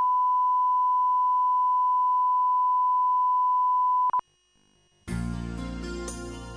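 A steady, high-pitched line-up test tone, the reference tone that goes with colour bars for setting audio levels, holds for about four seconds, then cuts off with a short blip. After about a second of near silence, music starts.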